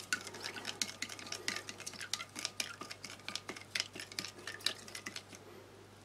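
The handle of a spork stirring powdered apple energy drink in a glass of cold water, with rapid light clinks and ticks against the glass. The stirring stops about five seconds in.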